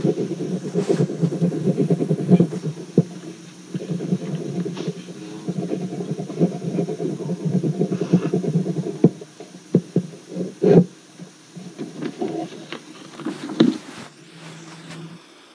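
Muffled low rumbling room noise with scattered knocks and clicks on an old 1968 tape recording. It thins out after about nine seconds and gives way to a faint steady hiss near the end.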